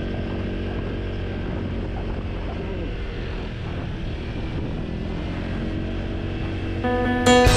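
Motor scooter running at a steady cruise, its engine hum mixed with wind and tyre noise. Music fades in near the end.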